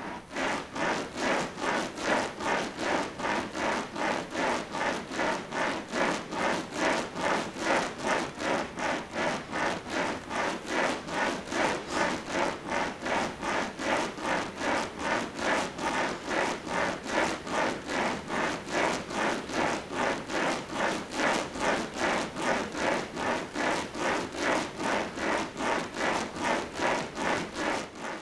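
Smovey swing rings shaken in a steady rhythm, the steel balls inside the ring tubes rolling and rattling in a whooshing rush that pulses about three times a second.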